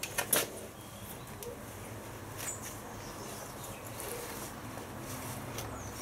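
Two short knocks just at the start, then a quiet, steady low background hum with a couple of faint, brief high chirps.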